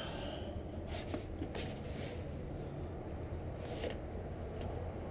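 Camera handling noise: faint rustles and a few light clicks and scrapes over a steady low rumble.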